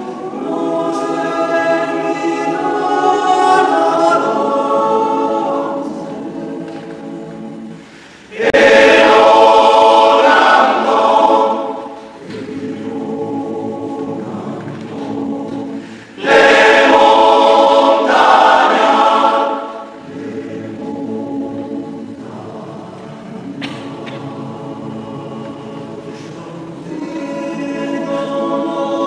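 Men's choir singing a cappella in close harmony. The singing swells suddenly loud twice, about eight seconds in and again about sixteen seconds in, each time for about three seconds, with soft, quieter passages between.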